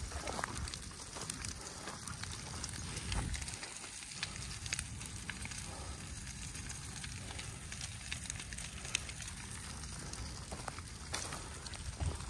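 Windrows of cleared brush burning, crackling steadily with frequent sharp pops over a low rumble.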